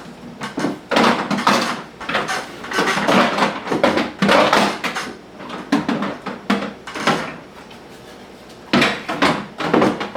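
Clatter, knocks and scraping of hard plastic and metal as a Makita cordless plunge track saw is handled and set down into its place, in a run of bangs over several seconds, a short pause, then a few more knocks near the end.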